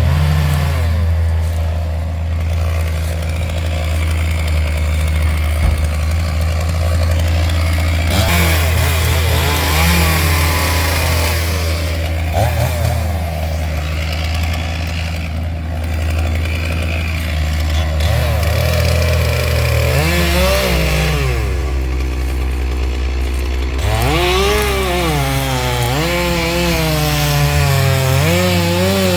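Chainsaw running and cutting, its pitch rising and falling as the throttle is opened and eased. Under it runs a steady low engine drone.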